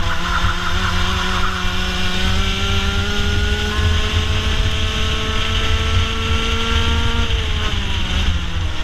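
Racing kart engine heard onboard, revving up steadily along a straight with its pitch slowly climbing, then the revs dropping about seven seconds in. Strong wind rumble on the microphone underneath.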